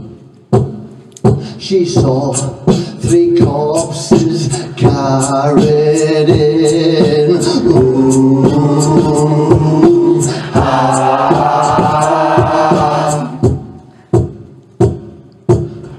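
Beatboxing into a cupped microphone: an even beat of sharp clicks and pops, with long held wordless notes over it through the middle and the beat alone again near the end.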